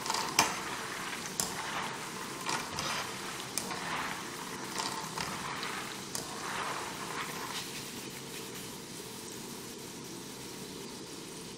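Cornstarch-coated peanuts sizzling in hot oil in a wok, frying crisp and ready to lift out, with clicks and scrapes of a wire spider strainer against the pan about once a second over the first seven seconds. After that the sizzle goes on alone, a little quieter.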